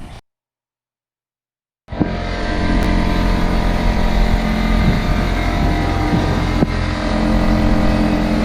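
A car engine running steadily and loudly, starting suddenly after a brief total silence.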